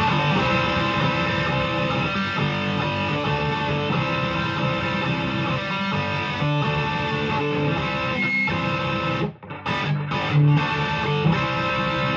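Electric guitar, a PRS S2 Standard 24 on its bridge humbucker, strumming big loud chords through an amp. The chords ring on with a couple of short breaks about nine and ten seconds in.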